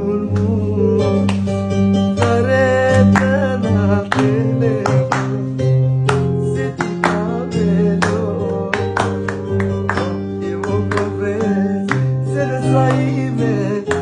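Live music: a quick melody on a plucked string instrument over steady held bass notes.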